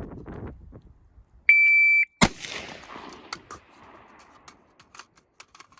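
Shot timer's start beep, a steady high electronic tone lasting about half a second, followed under a second later by one loud gunshot. Several fainter, more distant shots crack afterwards.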